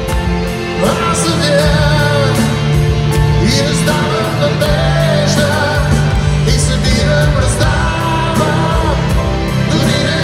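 Live band playing a song, a man singing long, gliding notes over guitars, keyboard and drums, heard from among the audience in a large arena with the hall's echo.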